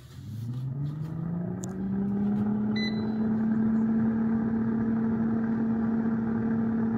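Instant Pot Vortex Plus air fryer oven's fan spinning up, its hum rising in pitch over the first two seconds and then running steadily with a rush of blown air. A short beep comes about three seconds in.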